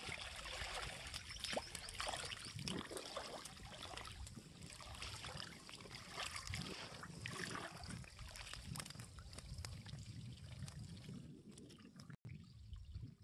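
Water splashing and sloshing around the legs of a wading angler while a hooked baam eel thrashes at the surface, settling down near the end as the eel is lifted clear.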